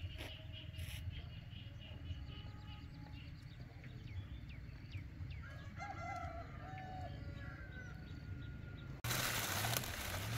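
A rooster crows once about halfway through, over a low steady rumble and fast high chirping. Near the end the sound cuts to a louder, even rushing noise.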